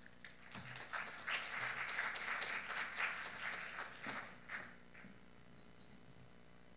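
An audience applauding faintly, the clapping building quickly and dying away about five seconds in.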